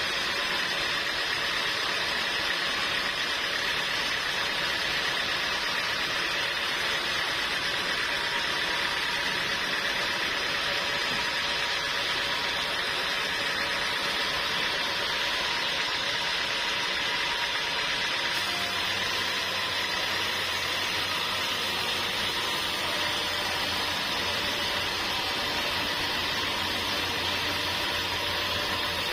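Sawmill machinery running steadily, with a continuous mechanical whir. A deeper hum joins about two-thirds of the way through.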